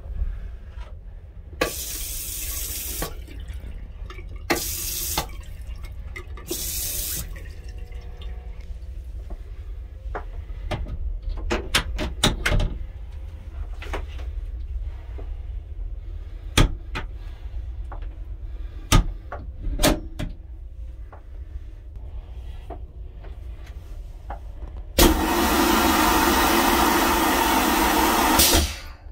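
Running water in three short spurts, then a louder, even rush of water lasting about three and a half seconds near the end, with scattered sharp clicks in between. Under it all is the steady low rumble of a moving train.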